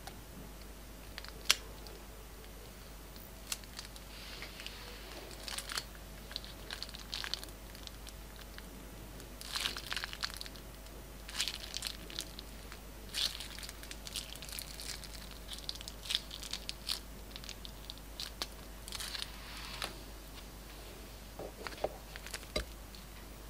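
Scissors snip once through the tip of a plastic piping bag about a second and a half in. Then comes irregular crinkling of the plastic bag as it is squeezed, with glossy glitter slime squishing out in short spells.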